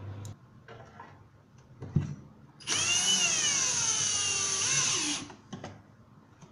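Cordless drill-driver driving a screw into the melamine back panel of a cabinet. Its motor whines for about two and a half seconds, the pitch sagging and then rising briefly before it stops. A few light knocks come before and after.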